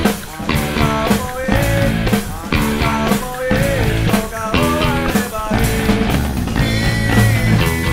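Rock music soundtrack playing continuously.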